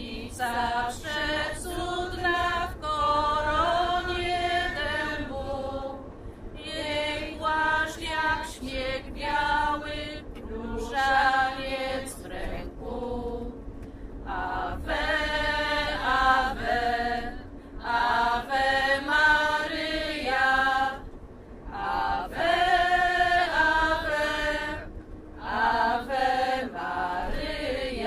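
A group of voices singing a hymn together, in sung phrases separated by short breaths.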